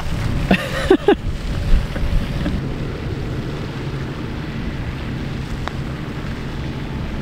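Steady low hum of a distant engine under wind noise on the microphone, with a brief voice about half a second in.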